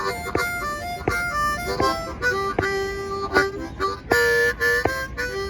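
Blues harmonica playing an instrumental break between sung verses, with held notes and bent chords. Under it runs a steady beat of sharp knocks, about one every three quarters of a second.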